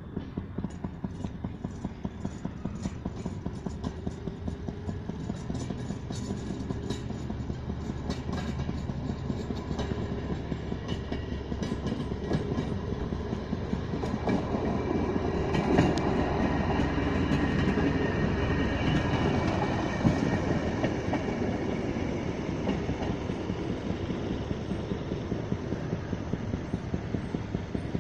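Railroad speeder cars (small motorized track inspection cars) running past on the rails, with a rapid, regular clicking at about four a second. It grows louder toward the middle as the cars pass close, then fades.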